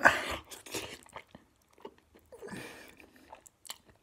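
A person slurping a forkful of spicy instant ramen noodles into the mouth, then chewing with many small clicks, with a second, quieter slurp about two and a half seconds in.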